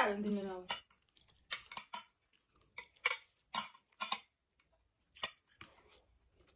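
Metal chopsticks clicking and tapping against ceramic plates, about ten irregular clicks, as two people pick up ramen and momos. A short falling vocal sound at the very start.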